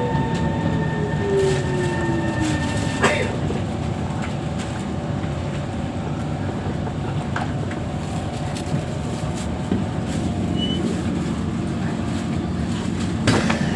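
Kawasaki C151 metro train's GTO chopper traction equipment whining as the train brakes into the station, the whine falling in pitch and cutting off with a click about three seconds in as the train comes to a stop. A steady low rumble inside the carriage follows, with another sharp click near the end.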